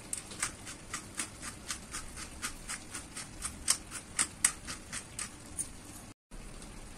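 Hand-twisted pepper mill grinding over the pan, its mechanism clicking at about four clicks a second for five seconds or so, then stopping.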